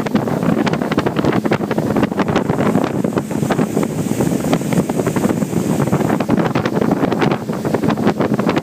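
Wind rushing over the microphone on a speedboat under way, with the boat's motor and water noise beneath it. Frequent short slaps run throughout.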